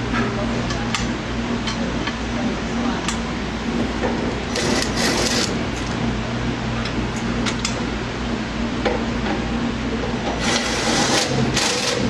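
Steel shroud cover being fitted over a gym machine's plastic shroud: rubbing and scraping of the parts with a few light clicks, over a steady hum. The scraping is loudest in a short stretch about four and a half seconds in and again from about ten and a half seconds in.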